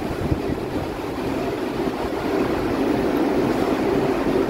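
KL Monorail train pulling into the station on its rubber tyres: a steady rumbling hum that grows louder as it comes alongside.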